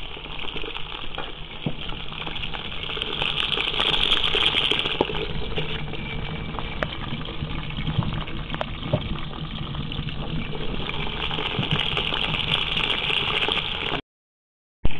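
Rabbit meat sizzling as it fries in a kazan: a steady hiss dotted with many small crackles. It cuts out briefly near the end.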